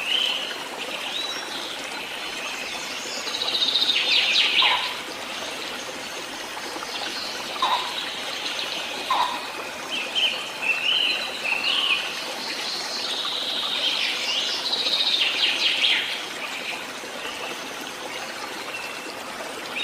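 Birds chirping and calling in short, scattered phrases over a steady rush of flowing water, a nature ambience bed. The chirps come in louder flurries a few seconds in and again in the second half.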